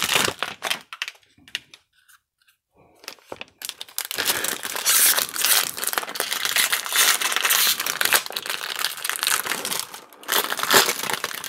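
Foil wrapper of a baseball-card pack crinkling and tearing. There is a short spell at the start, then after a brief pause a longer continuous stretch of crinkling.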